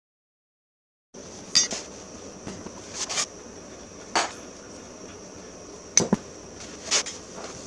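Metal clinks and knocks, about six separate sharp strikes a second or so apart, over a faint steady hiss, after about a second of dead silence at the start: hand tools and metal parts being handled during work on the mower.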